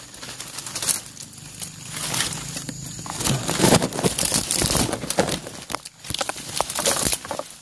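Leaves and dry twigs rustling, crackling and snapping irregularly as someone pushes a hand and camera through dense brush.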